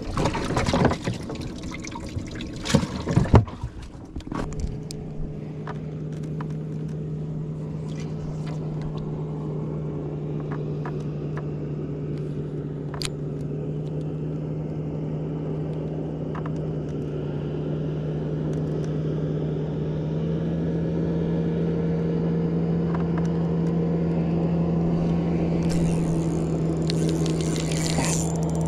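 A few knocks and clatters, then about four seconds in a boat motor comes on and runs with a steady hum that slowly grows louder.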